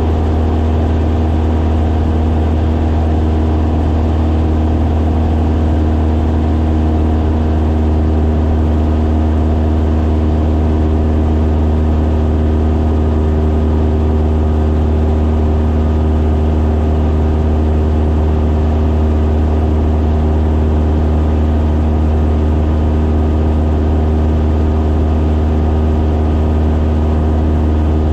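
Light aircraft's engine and propeller droning steadily in flight, heard from inside the cabin: a strong low hum with a stack of steady tones above it, holding constant throughout.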